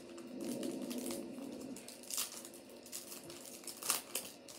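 Foil wrapper of a Topps Chrome baseball card pack crinkling in the hands, in a few sharp crinkles from about two seconds in. A faint steady hum lies under the first second or so.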